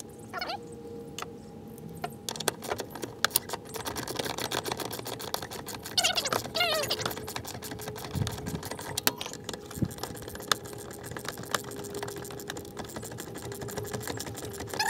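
Ratchet wrench clicking in quick runs while bolts on a truck's brake master cylinder are turned, mixed with light metal tool clatter. A brief high call cuts in about six seconds in.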